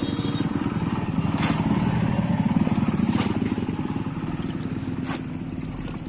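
An engine running, growing louder to about two and a half seconds in and then fading, as a passing vehicle does, with three short sharp clicks spread through it.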